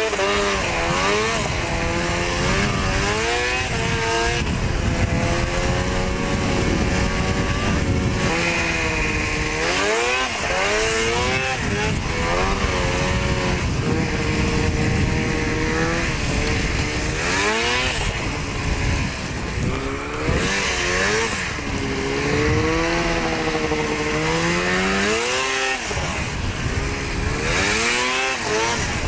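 Snowmobile engine revving up and easing off over and over as the rider works the throttle, its pitch rising and falling every few seconds, over a steady rushing hiss.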